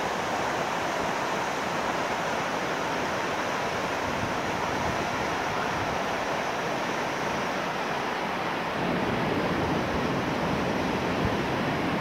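Water rushing steadily through open sluice gates, a continuous even rush that gets a little louder and deeper about nine seconds in.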